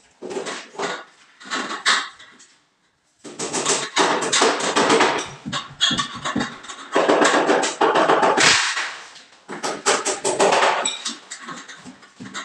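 Thin galvanized steel stud clattering, scraping and clanking as it is handled and worked by hand. It comes as irregular rattling knocks, with a brief drop-out just before 3 s.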